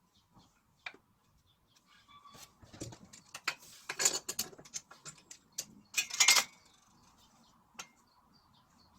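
Irregular clinks, clicks and knocks of hard objects, such as tools or small parts, being handled and set down. They are busiest in the middle, with the loudest clatters about four and six seconds in.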